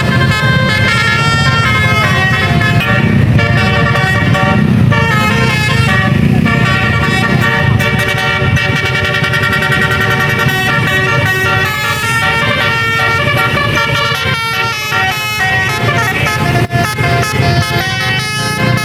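Basuri telolet air horns, a set of multi-trumpet musical horns, playing a melody of held notes that step from one pitch to the next, over the low rumble of the vehicle's engine and road noise.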